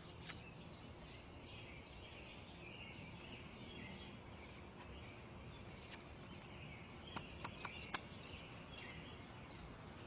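Faint garden ambience with small birds chirping now and then, and a quick run of four sharp ticks around seven to eight seconds in.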